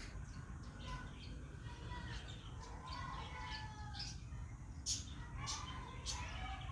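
Pet parrot chirping, with short gliding calls, and a few sharp clicks, the loudest about five seconds in, over a steady low background rumble.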